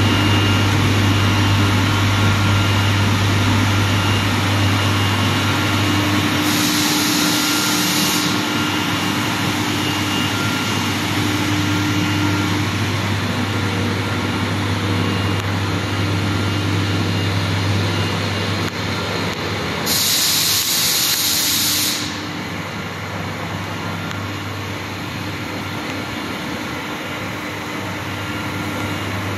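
Plastics dehumidifying hopper dryer running with a steady low hum and blower noise. Two bursts of hissing, each lasting a couple of seconds, come about six seconds in and again about twenty seconds in.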